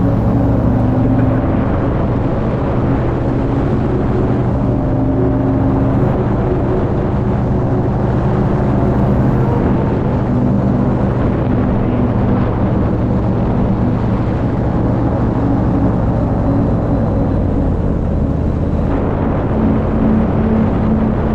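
Paramotor engine and propeller running steadily in flight, a loud even drone whose pitch shifts slightly near the end.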